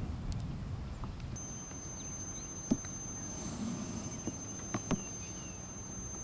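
Sharp clicks of golf clubs striking balls on short chip shots, the loudest about two and a half seconds in and two more close together near five seconds. A steady high-pitched insect whine runs under them, with light wind rumble at the start.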